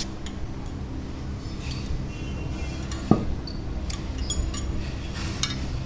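Metal engine parts and tools clinking and tapping as they are handled, with one sharper knock about three seconds in, over a steady low hum.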